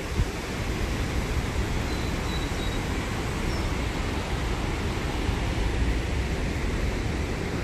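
Steady rushing of river water, with a heavy low rumble underneath.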